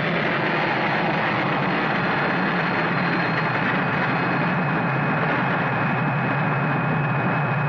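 Sci-fi film sound effect of a spaceship's rocket engine: a steady rushing drone with a low hum underneath, joined about three seconds in by a thin, high, steady whistle.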